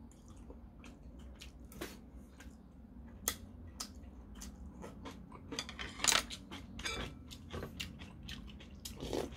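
Eating sounds: chewing, with many short clicks of stainless-steel chopsticks and a metal spoon tapping bowls and dishes. The clicks grow louder and busier in the second half.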